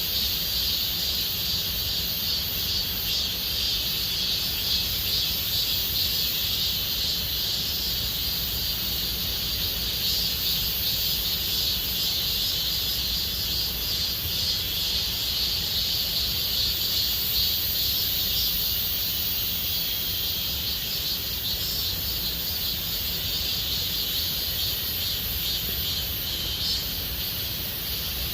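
Cicadas singing in chorus: a steady, unbroken high buzzing drone with a low rumble underneath.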